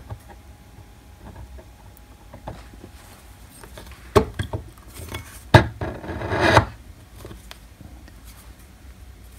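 Aluminium timing pulley and bearing being pushed by hand into a bearing housing on an aluminium plate, a light fit: two sharp metal knocks about four and five and a half seconds in, the second the loudest, followed by a short scraping rub of metal on metal.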